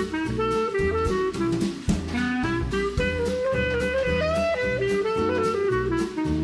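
Background jazz music: a melody line of held notes over a steady drum-kit beat.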